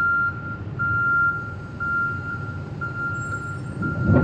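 A truck's reversing-type warning beeper sounds in a steady repeated beep, about twice a second, over the low rumble of a diesel engine, as the low-loader's hydraulic ramps are raised. A heavy clunk comes at the very end.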